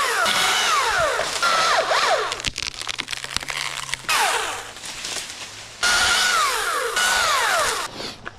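Cordless power-tool motor running in three bursts of one to two seconds, each whining steadily and then falling in pitch as it labours under load before stopping.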